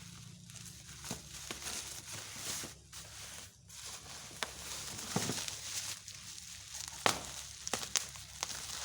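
Packaging being handled during an unboxing: crinkling and rustling, with scattered sharp clicks, the sharpest about seven seconds in.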